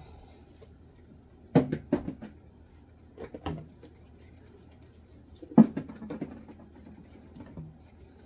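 Condiment bottles and jars knocked and set down, a few sharp clatters in small clusters, the loudest just past halfway.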